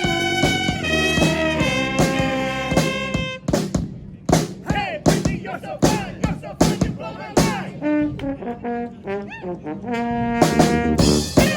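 Small four-horn brass band playing. It opens on held chords, then switches to short punched notes with pitch bends between sharp percussive hits, and settles on a held chord again near the end.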